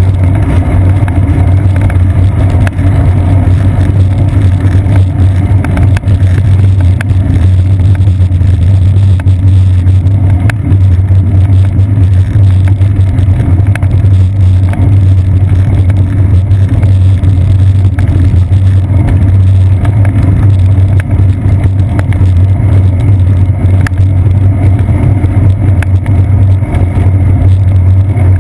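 Steady, loud low rumble of wind and road vibration from a bicycle riding on wet pavement, picked up by a seat-post-mounted GoPro camera, with a few faint knocks from bumps in the path.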